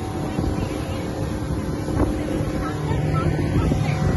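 Speedboat engine running steadily at speed, with wind buffeting the microphone.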